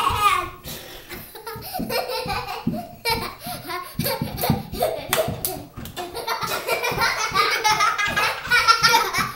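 Young girls laughing hard as they dance, the laughter loudest in the last few seconds, with many quick thuds of feet on a tiled floor.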